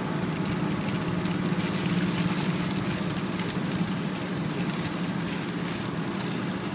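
Steady engine hum and tyre hiss of a car driving on a wet road, heard from inside the cabin, with light ticking of rain on the windscreen.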